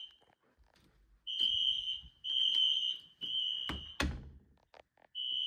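Fire alarm horns sounding the temporal-three (code 3) evacuation pattern: three beeps of a steady high tone, each a little under a second, then a pause before the next group. A single sharp knock comes about four seconds in, between the groups.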